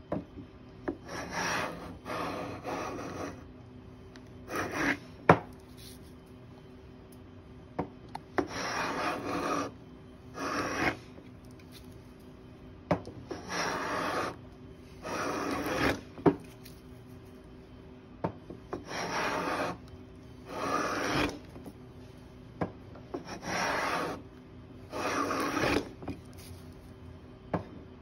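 Metal hand plane cutting along a rosewood board: about ten rasping strokes, each half a second to a second and a half long, often in long-then-short pairs with short pauses between. Sharp knocks fall between strokes as the plane is set back on the wood, the loudest about five seconds in.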